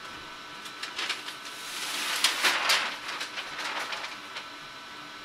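A cotton T-shirt rustling as it is handled and smoothed onto a heat press platen, with a few light clicks. The rustle swells in the middle and fades out.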